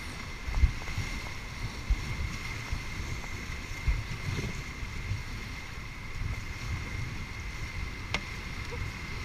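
Whitewater rapids rushing around an inflatable raft, with wind buffeting the microphone in irregular low thumps and one sharp click about eight seconds in.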